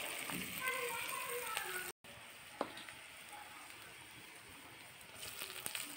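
Onions, garlic and chillies sizzling in hot oil in an iron kadhai, a steady frying hiss. It breaks off briefly about two seconds in and comes back fainter, with a few light clicks near the end.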